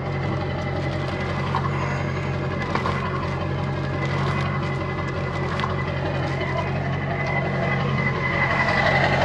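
A vehicle engine idling steadily, with a faint steady high whine over it.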